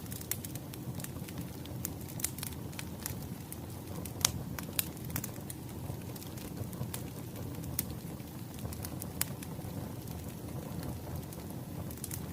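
Burning firewood crackling: a steady low rumble of flames with irregular sharp pops and snaps, the loudest a little over four seconds in.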